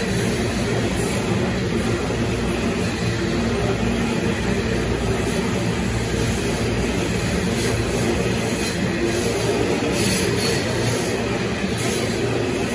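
Coal hopper wagons rolling past on the adjacent track: the steady, continuous running noise of steel wheels on rail.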